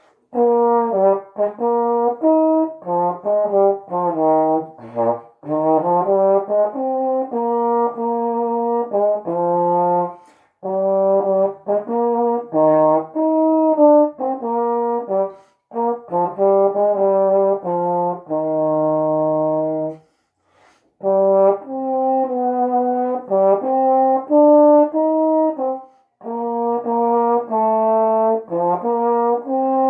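Solo trombone playing a slow hymn melody, held notes in phrases with short pauses for breath between them.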